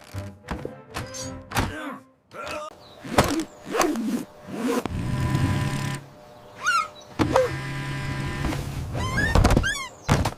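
Background music laid over a string of sharp knocks and thunks, with short squeaky sound effects that glide up and down in pitch near the end.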